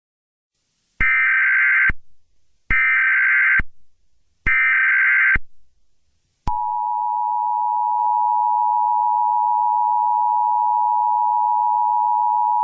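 Emergency Alert System header: three short bursts of screeching digital data tones, just under a second each, with brief gaps between them. These are followed by the steady, loud two-tone EAS attention signal, which starts and holds.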